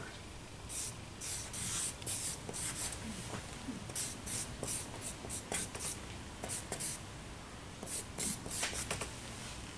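Charcoal stick scratching across drawing paper in quick, short strokes, coming in several bunched runs with brief pauses between them.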